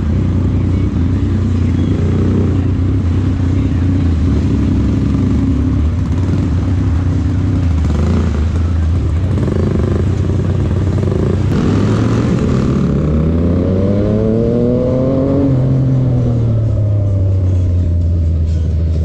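Yamaha MT-09's inline three-cylinder engine idling with a deep rumble, then revved once about two thirds of the way through, its pitch rising and falling back to idle.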